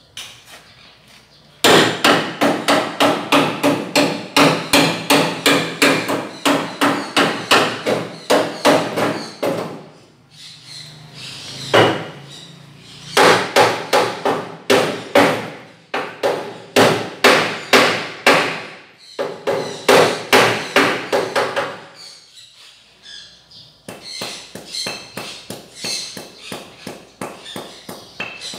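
Hammer striking a steel frame in quick, ringing blows, about four a second, in two long runs with a pause between. Lighter, quieter taps follow near the end.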